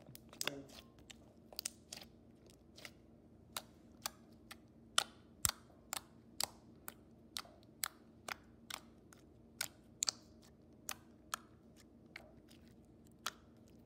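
Clear slime with pom-poms being poked and pressed by fingertips, giving sharp little clicking pops, irregular, about two a second.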